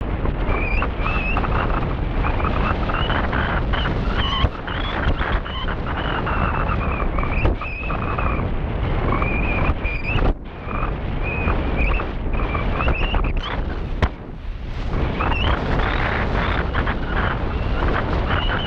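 Strong wind rushing over the microphone of a camera flying with a paraglider, with frequent buffeting knocks. Over it a paragliding variometer beeps in broken runs of a high tone whose pitch wavers up and down: the vario signalling climb in thermal air.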